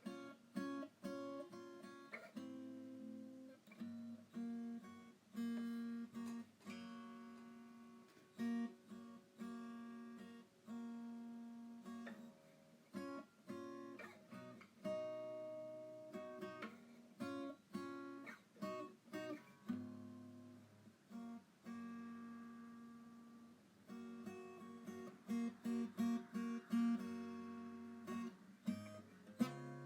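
Background music on acoustic guitar, plucked and strummed chords with notes ringing out between strokes.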